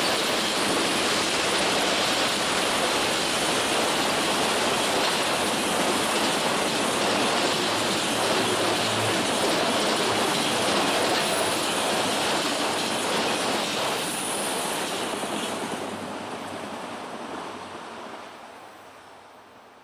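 Freight train of autorack cars rolling past, a steady rushing rumble of wheels on rail that fades away over the last several seconds as the train recedes.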